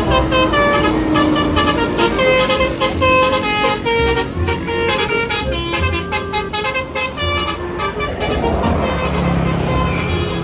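A bus's multi-tone telolet air horn playing a quick tune of short stepped notes. About eight seconds in, a rushing vehicle noise swells up underneath.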